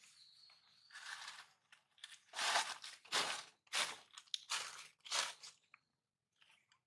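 Crunching, rustling sounds: a softer rustle about a second in, then five loud crunches about two-thirds of a second apart.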